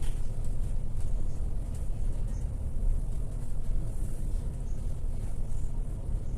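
Steady low rumble of a bus's engine and tyres at cruising speed, heard from inside the passenger cabin.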